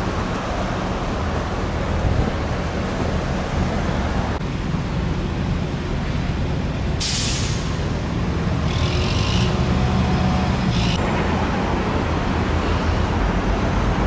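A heavy road vehicle's engine running steadily close by in traffic, with three short air-brake hisses about halfway through and over the next four seconds.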